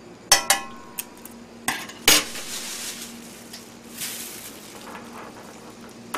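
A metal utensil clinks and knocks against the cooking pan about five times in the first two seconds while stirring the kimchi, each strike ringing briefly. A softer crinkling of a plastic bag follows.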